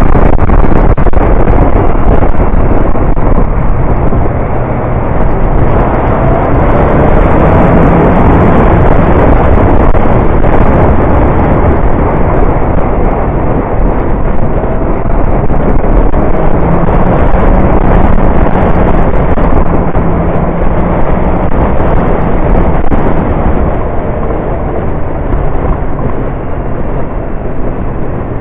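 Motorcycle riding downhill, its engine running low under a loud, steady rush of wind buffeting the action camera's microphone.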